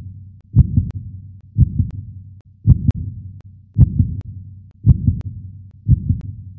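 Slow, heartbeat-like low double thump (lub-dub), repeating about once a second as the intro of an electronic song.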